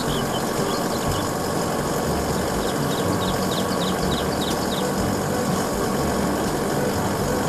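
Isuzu aerial work platform truck's engine running steadily while its hydraulic boom raises the work platform. A quick run of faint high chirps sounds in the middle.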